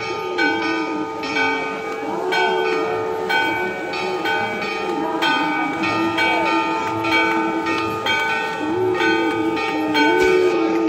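Temple bells struck in a steady rhythm of about one stroke a second for the aarti, each stroke ringing on, with voices chanting along.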